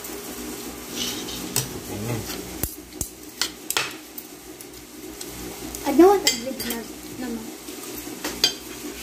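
Metal spoon and fork clinking and scraping against a ceramic plate while gravy is mixed into rice, with a scatter of sharp clinks. About six seconds in there is a short, louder pitched sound.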